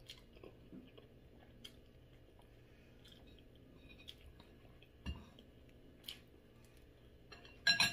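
Close-up chewing of tender braised pork leg eaten by hand: soft, wet mouth sounds with scattered small clicks. Near the end comes a brief, louder clink.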